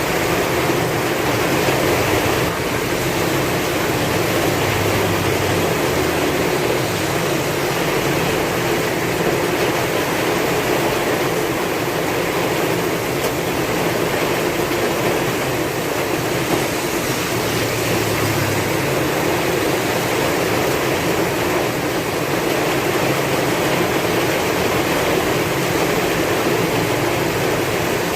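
Heavy rain falling steadily with strong wind, a dense hiss with a faint low rumble that swells and fades.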